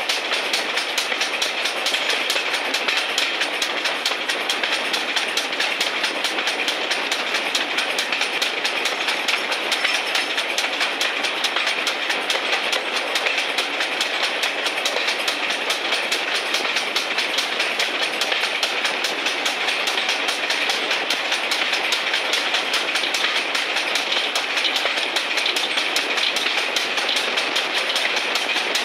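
Steam-hauled train running along the line, heard from a carriage window: a steady, unbroken noise of the wheels on the rails and the moving train, with no change in speed or any single loud event.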